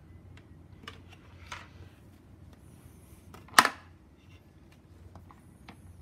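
Plastic parts of an ultrasonic humidifier being handled: several light clicks and taps, and one sharp loud knock about three and a half seconds in as the base is set down on a wooden table. The humidifier is not running.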